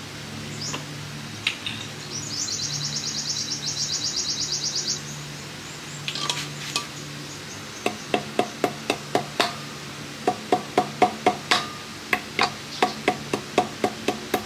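A ratcheting hand tool clicking as the brake-disc bolts on a scooter wheel are worked: a fast, even run of clicks for about three seconds, then from about eight seconds in, groups of sharp clicks about three a second. A low steady hum, like a fan, runs underneath.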